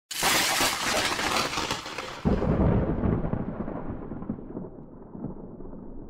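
A sudden thunderclap, then a second low rolling rumble about two seconds in that slowly dies away.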